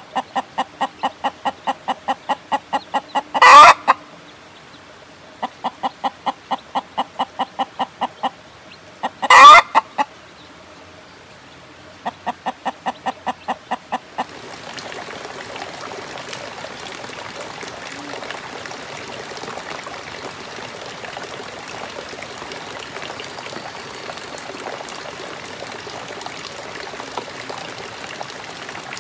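A mother hen with chicks clucking in quick, even runs of about five clucks a second, with two much louder calls. About halfway through, the clucking stops and a steady sound of running water takes over.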